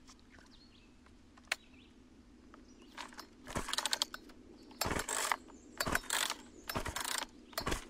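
A run of short mechanical ratcheting bursts, about one a second, starting about three seconds in, after a single sharp click near the start.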